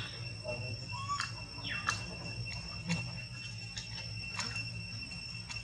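Outdoor ambience: a steady high-pitched insect drone, with short sharp chirps scattered through it and one brief falling squeak about two seconds in.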